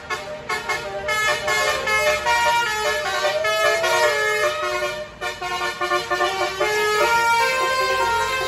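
Basuri 'telolet' musical horn on a tour bus playing a tune, several horn tones sounding together and changing note in quick steps.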